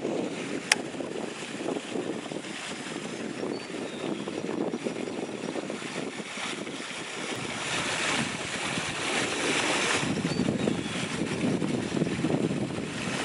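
Wind buffeting the microphone, a steady rush that grows stronger and deeper about halfway through. One sharp click a little under a second in.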